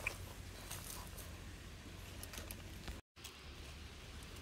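Faint scratching and light clicks of hands digging through dry, crumbly soil, over a low steady hum, with a brief dropout about three seconds in.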